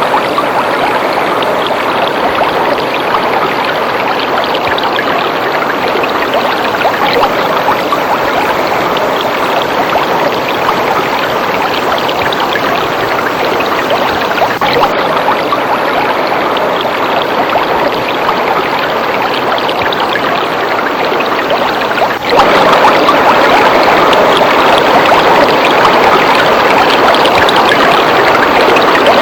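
Waterfall water rushing and splashing steadily. A brief dip comes about three-quarters of the way through, after which the rush is somewhat louder.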